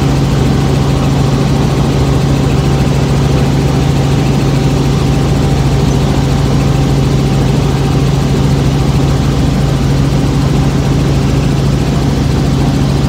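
Helicopter in flight, heard from inside the cabin: a steady, unchanging engine and rotor drone with a strong low hum.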